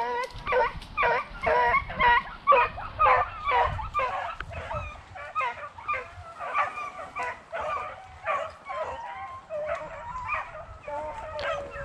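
A pack of beagles baying as they run a rabbit: a fast run of overlapping barks, two to three a second, that draws out into longer howling bawls near the end.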